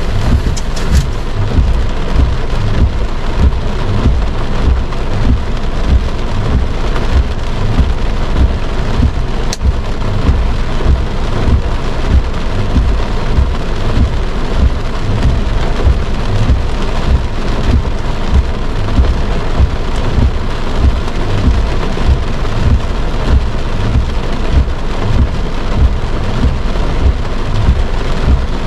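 Heavy rain falling on a car's roof and windshield, heard from inside the cabin: a dense, steady patter over a heavy low rumble.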